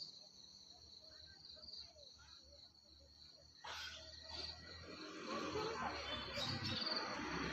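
Insects chirring in a steady high trill, with a few faint voices; from about halfway a vehicle's noise swells steadily louder.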